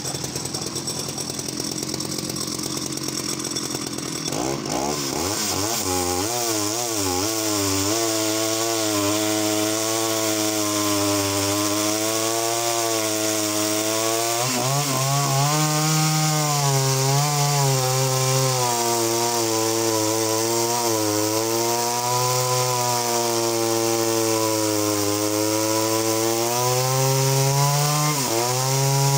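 Danarm 71SS vintage two-stroke chainsaw running, opened up about four seconds in and then cutting down through a large log. The engine pitch keeps rising and falling as the chain bites into the wood.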